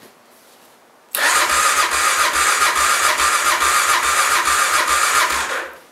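Kawasaki KLR 650's single-cylinder engine cranked over by its electric starter for about four and a half seconds, pulsing evenly with each compression stroke, and not catching. The fuel petcock is off, so the freshly rebuilt engine gets no fuel.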